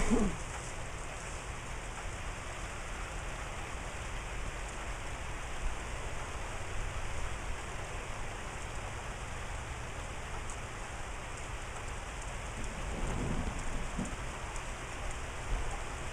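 Steady hiss of rain falling, with a low rumble underneath.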